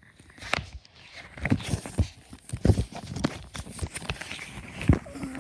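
Irregular soft knocks and rustles of handling noise close to the microphone, with louder thumps about halfway through and near the end.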